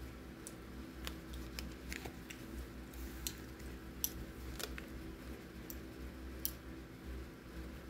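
Scattered small sharp clicks and taps, about one a second at irregular spacing, over a low steady hum.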